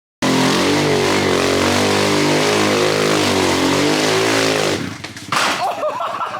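Off-road vehicle engine running hard at high revs, its pitch wavering under heavy wind and driving noise. It cuts off about five seconds in.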